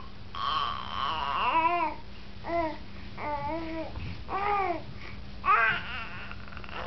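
Baby babbling: a run of about five pitched vocal sounds that slide up and down. A longer drawn-out one comes first, followed by shorter bursts.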